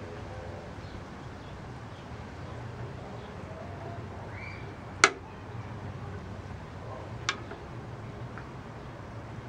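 Two sharp clicks of small hard objects knocking, about two seconds apart, the first much louder, over a steady low hum.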